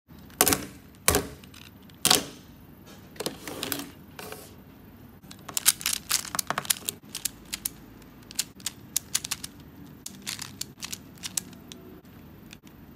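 Plastic Pyraminx puzzle being twisted by hand: quick clicks as its layers and tips turn. A few single clicks come at first, then a fast flurry about halfway through, thinning out toward the end.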